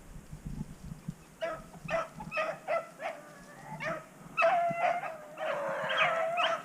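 Rabbit hounds baying: a string of short barks starting about a second and a half in, then longer, drawn-out bays near the end. It is the pack giving voice as it runs a cottontail's trail.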